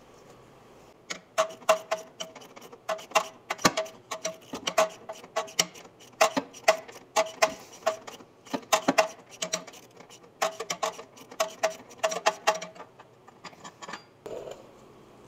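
Ratchet wrench clicking in quick runs with short pauses, each click with a short metallic ring, as a nut is worked loose; the clicking stops about two seconds before the end.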